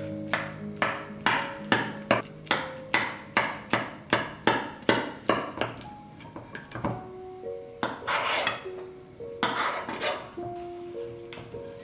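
Chef's knife cutting through the crisp baked pita-bread crust of a cheese bake: sharp crunches about two and a half a second for the first six seconds, then two longer scraping crunches.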